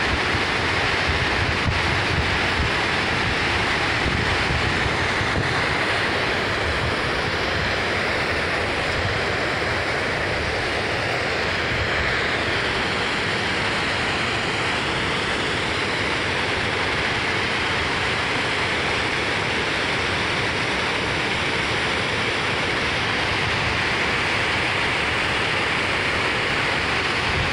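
Steady rush of white water pouring over a low dam spillway, with wind buffeting the microphone in gusts during the first few seconds.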